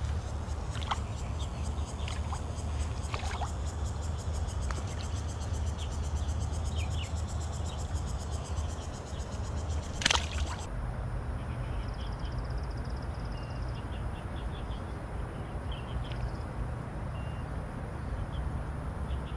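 A caught river fish released by hand drops back into the water with one sharp splash about halfway through. Under it runs a steady low rumble of riverside ambience with faint high chirps.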